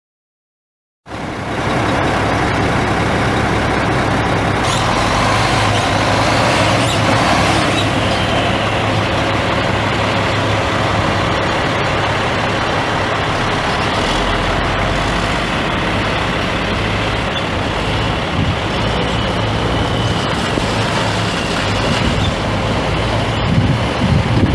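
Mack E7 12-liter inline-six turbo diesel of a 2000 Mack CH613 semi truck running steadily, cutting in suddenly about a second in.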